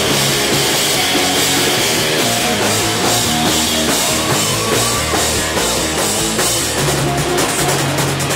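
Live rock band playing loud: electric guitar, bass guitar and a drum kit, with rapid cymbal hits in the last second or so.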